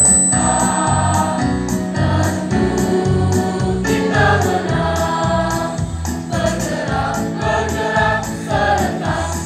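Mixed school choir singing an Indonesian patriotic song, accompanied by an electronic keyboard with a steady bass beat.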